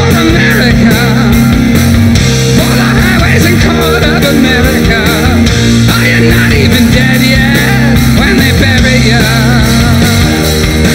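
A rock band playing loud and live: electric guitars, bass and drums in a full, driving passage, with a wavering lead line on top.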